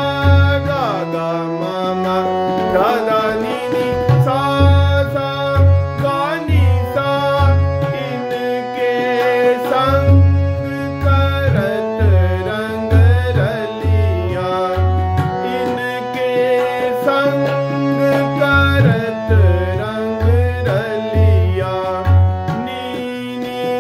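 Harmonium playing phrases of Raag Malkauns, note changing every second or so, over a steady tabla rhythm with deep bass strokes.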